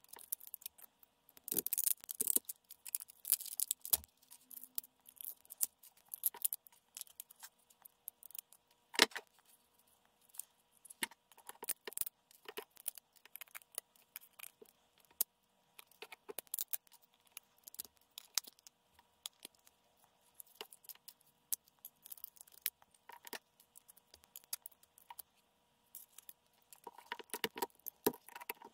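Pliers snipping and prying 3D-printed plastic support material off a printed pistol frame: a quick, irregular string of sharp snaps, clicks and short scrapes, sped up four times. The loudest snap comes about nine seconds in, with a busier flurry near the end.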